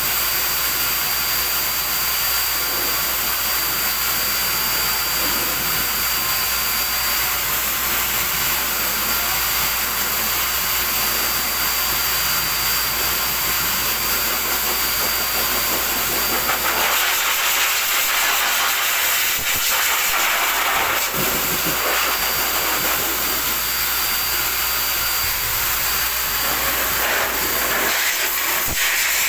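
Pet grooming blower dryer running steadily, a loud rushing hiss of air with a faint high whistle. The rush turns brighter a little past halfway.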